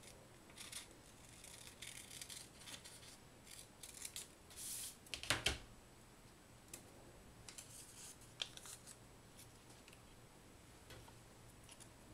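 Scissors snipping through a small piece of folded origami paper, a run of short crisp cuts in the first five seconds, with a sharp knock about five seconds in. After that, only faint crinkles and clicks as the cut paper is creased by hand.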